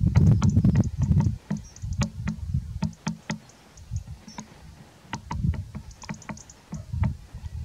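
Gusty low rumble of wind buffeting the camera's built-in microphone, swelling and dropping away, with scattered sharp clicks and knocks throughout.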